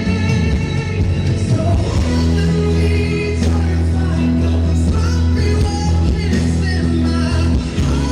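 Christian worship song with singing over a band. Long held low notes enter about two seconds in.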